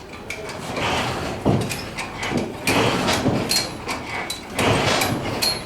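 Two-chambered blacksmith's bellows pumped by a rope pull, pushing air into the coal forge fire in a rising and falling whoosh about every two seconds.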